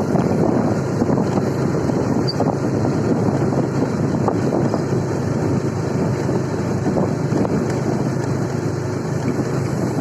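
Steady wind rushing over the microphone, with a low rumble underneath, as from a motorcycle ride.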